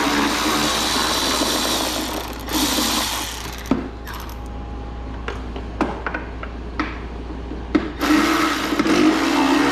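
Power tool with a socket running steadily while backing out the mower's shroud bolts. It stops a few seconds in for a quieter stretch of clicks and knocks as parts are handled, then runs again near the end.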